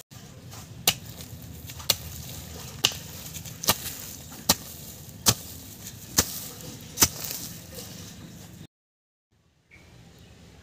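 Long-handled hand hoe chopping into garden soil, eight strikes at about one a second, breaking up the ground for sowing. The strikes stop about two-thirds of the way through.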